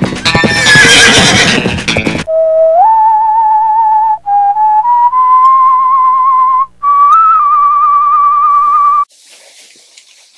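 Music with a horse whinnying over it for the first two seconds. Then a lone, slow whistled tune with a wavering vibrato, its held notes stepping upward in pitch, which stops about nine seconds in.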